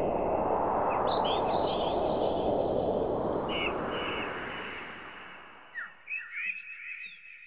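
Small birds chirping in short repeated calls over a steady rushing noise, which fades out over the last few seconds while the chirps continue.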